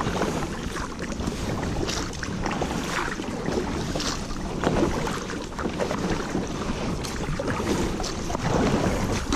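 Water rushing and splashing around a canoe being paddled down a small river, with irregular splashes and drips from the paddle. There is some wind noise on the microphone.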